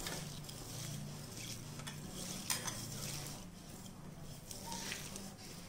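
A hand squeezing and rubbing chopped onion, green chillies, ginger and curry leaves with rock salt and coconut oil in a bowl: a faint, irregular rustling as the onion is worked until it softens and wilts.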